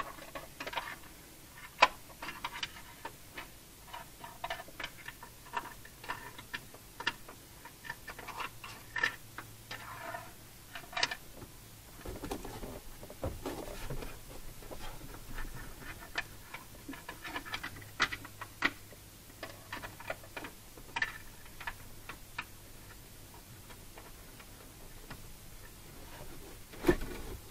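Irregular small clicks and rustling from a wire and plastic interior trim being handled as the wire is fed back into place, the sharpest click about two seconds in and a low thud near the end.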